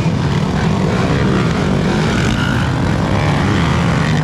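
Several motocross dirt bike engines running together around the track, loud and steady, their pitch rising and falling as the riders rev and ease off.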